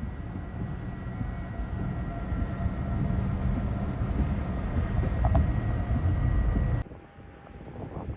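Strong storm wind noise, heavy and low, with a faint steady whistle over it. About seven seconds in it cuts off suddenly to a quieter stretch of gusting wind.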